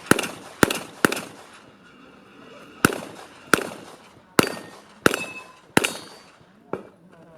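Handgun shots fired in an irregular string, about nine in all, each followed by a short echo, with a quick pair early on and one fainter shot near the end.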